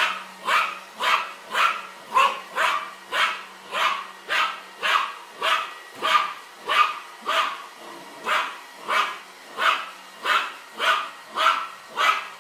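A dog barking over and over at a vacuum cleaner, in an even rhythm of about two barks a second that never lets up.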